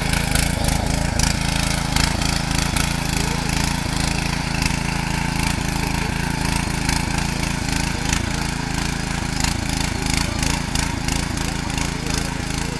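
Kirloskar 5 hp petrol power weeder's small single-cylinder engine running steadily under load as its rotary tines churn through soil, with frequent clattering knocks through the engine sound.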